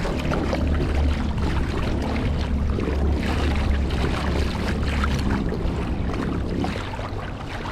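Boat motor running under way, a steady low drone with wind and water noise over it; the drone drops off near the end.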